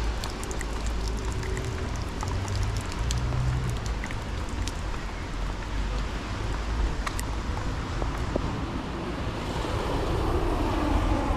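Rainy city street: traffic and wind rumble on the microphone under a steady hiss, with scattered sharp ticks of raindrops. The hiss swells near the end.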